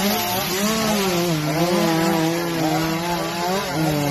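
A small engine running at a wavering, unsteady speed over a loud rushing hiss.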